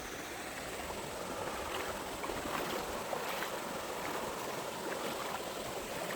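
Mountain stream flowing: a steady rush of running water.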